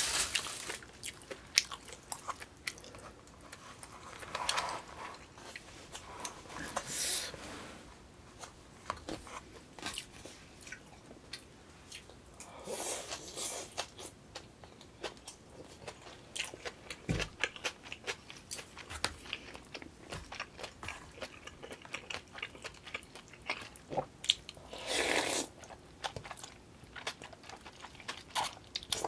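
Close-miked eating sounds: wet chewing with many small clicks and crunches, broken by a few longer slurps of noodles and spicy beef soup (yukgaejang).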